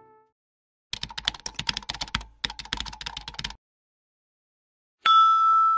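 Rapid typing on a computer keyboard, a fast run of key clicks lasting about two and a half seconds with a brief pause in the middle. About five seconds in, a loud ringing tone starts abruptly and holds.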